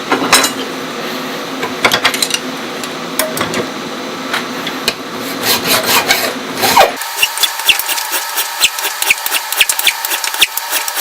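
Aluminium flat stock being worked by hand with an abrasive tool, a rasping scrape in quick repeated strokes as its edges are rounded. About seven seconds in the sound turns thinner, a fast run of light ticking scrapes.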